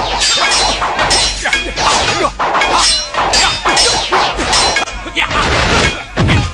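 Dubbed fight sound effects: a rapid string of whacks and blows from fists and fighting sticks, with crashing impact effects.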